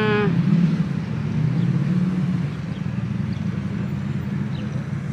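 Steady low rumble of road traffic, with a few faint high chirps.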